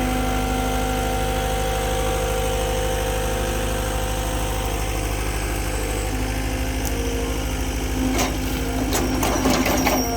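Engine of a machine driving a post-hole auger, running steadily at one speed. From about eight seconds in comes a burst of clattering and knocking, loudest just before the end.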